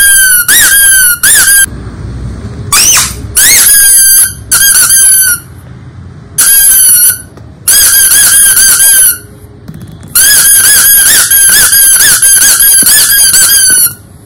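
Rubber squeaky toys being squeezed again and again, giving loud, high-pitched squeaks in quick runs of several a second with short pauses between the runs.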